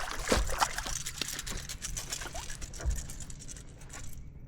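A freshly caught crappie thrashing as it is landed: a rapid, irregular patter of slaps and scratchy clicks that stops abruptly about four seconds in.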